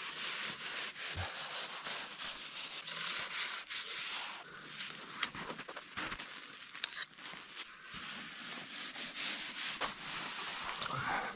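Snow being sawn into blocks: repeated scraping strokes of a blade through packed snow, with a few sharp clicks along the way.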